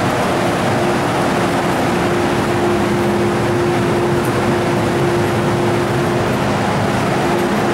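Steady hum and rushing noise of an MTR Tsuen Wan Line train standing at the platform, with a constant mid-pitched tone running unchanged throughout.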